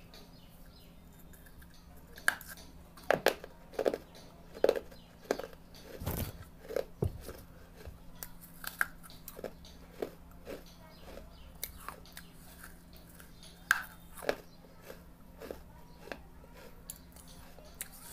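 A person biting and chewing pieces of red clay, making irregular crisp crunches.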